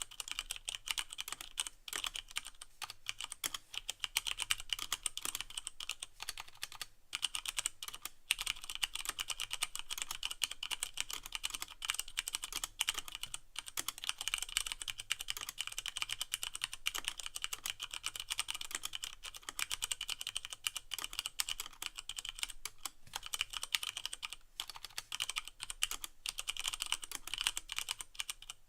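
Continuous fast typing on a Leopold FC660M mechanical keyboard with Cherry MX Brown switches and no O-rings, a dense stream of key clacks with a few brief pauses.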